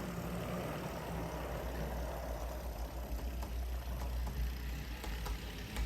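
HO-scale GP18 model diesel locomotive running steadily on track with its newly fitted budget motor. The motor and gears make a steady low whir, with wheel-on-rail noise and a few faint ticks. The gearing is not perfectly quiet, but the motor runs smoothly.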